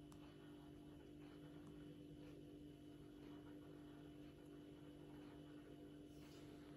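Near silence: a steady low electrical hum, with a few faint taps.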